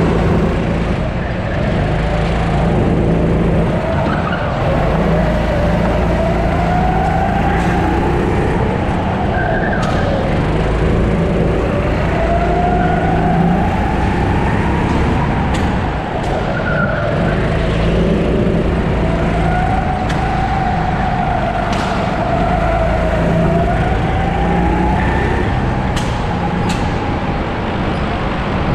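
Sodi 270 cc four-stroke kart engine running at speed, its pitch rising and falling in waves every few seconds as it accelerates out of corners and lifts for the next. A few sharp clicks are heard over it.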